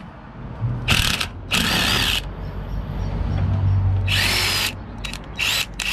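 Electric power driver run in three short bursts, its motor whining as it spins a fastener on the car's front suspension, with a few short clicks near the end.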